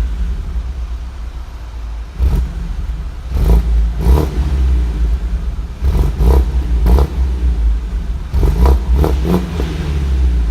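BMW 120i E87's N46 four-cylinder petrol engine through its stock exhaust, revved in a series of quick throttle blips, the revs falling back between them.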